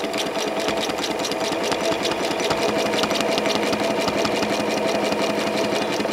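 Janome 6600 domestic sewing machine stitching steadily at speed during free-motion ruler quilting: a motor hum with a rapid, even clatter of needle strokes.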